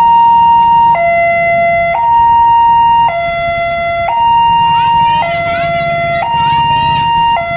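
Railway level-crossing warning alarm sounding a loud two-tone high–low signal, switching pitch about once a second, which warns that a train is approaching. A motorbike engine idles underneath.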